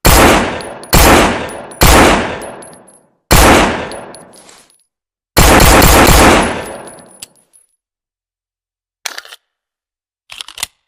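Colt M1911 .45 pistol firing four single shots about a second apart, then a quick string of about five shots, each with a long echoing tail. A few short metallic clicks follow near the end.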